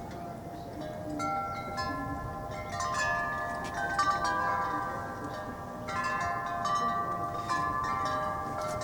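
Chimes ringing: many overlapping, sustained metallic tones struck at irregular moments, like wind chimes stirring.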